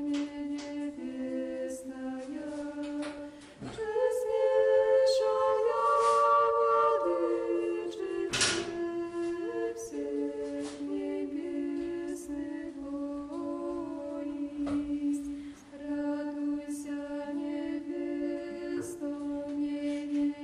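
A cappella choir singing slow, held chords that step from note to note, with a few sharp knocks over it, the loudest about eight seconds in.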